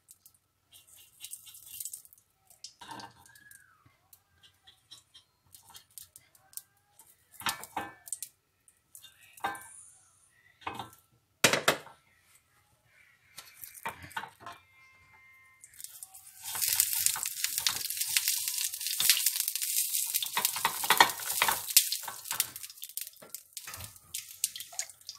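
Scattered light taps and clicks as the wells of a hot bánh khọt mould pan are dabbed with oil, then, from about 16 s in, a loud sizzle of the oil heating in the wells that lasts several seconds.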